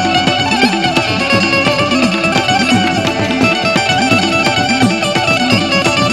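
Instrumental passage of Gujarati devotional folk music, led by a plucked string instrument playing the melody.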